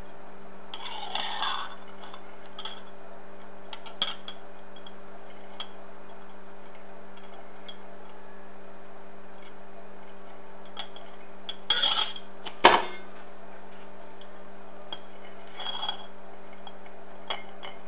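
Light, scattered clicks and clinks of a tool and the wooden deck piece against the inside of a glass bottle as the deck is worked into place, with two louder knocks about twelve seconds in. A steady low hum runs underneath.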